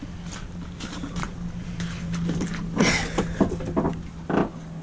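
Footsteps and handling noises beside a pickup truck, then a sharp clunk about three seconds in as the truck's door is opened, followed by a few lighter knocks, over a steady low hum.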